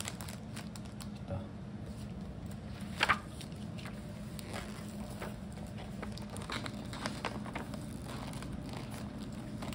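Cellophane macaron wrappers crinkling and a paperboard gift box being handled and folded shut: scattered light crinkles and taps, with one louder tap about three seconds in, over a steady low hum.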